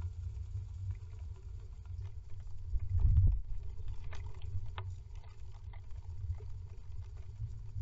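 A nesting tit shifting about on its nest inside a wooden nest box: low rumbling scuffs of its body against the nest material, a heavier thump about three seconds in, then a few faint scratchy clicks.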